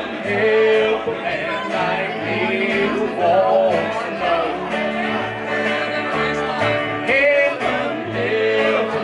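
Small country band playing live: upright bass plucking a steady, stepping bass line under electric and acoustic guitars.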